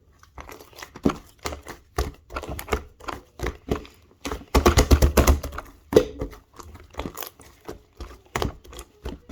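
Gray clay slime being squeezed and poked by hand, giving a quick irregular run of sticky clicks and pops, thickest in a dense burst about halfway through.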